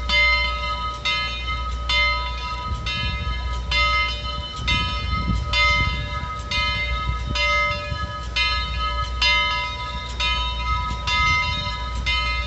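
Steam locomotive bell on Southern Railway Mikado #4501, struck in a steady rhythm and ringing on between strokes, over a low rumble from the locomotive as it edges forward.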